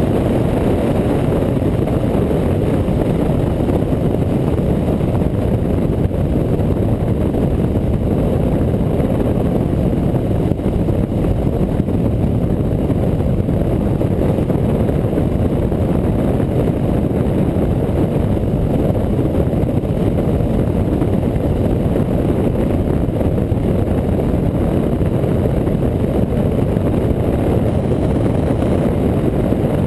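Motorcycle riding along a road at a steady speed: engine and wind rushing over the bike-mounted camera's microphone merge into a steady low rumble.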